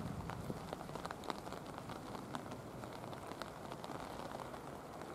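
Heavy rain falling, with many drops striking close to the microphone as sharp, irregular ticks over a steady hiss.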